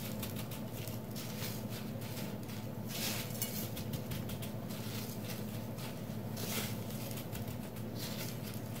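Gloved hands rolling and pressing an egg-coated cheese stick in a plate of coarse breadcrumbs (bột chiên xù): soft, irregular scratchy rustling of the crumbs, over a steady low hum.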